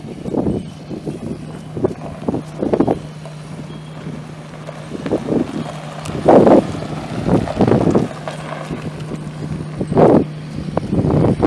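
Pickup truck's 5.0-litre V8 running with a steady low hum, under irregular thumps and gusty rumble, two louder ones about six and ten seconds in.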